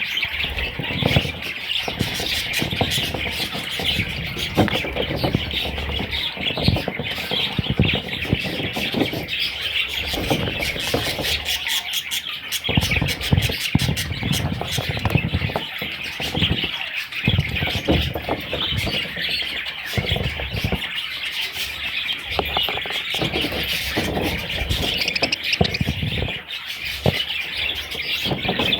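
Budgerigars chirping and chattering without a break, with frequent short low knocks and rustles mixed in.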